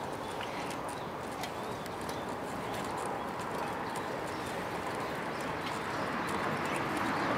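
Steady open-air background noise with small bird chirps scattered through it and a few faint clicks.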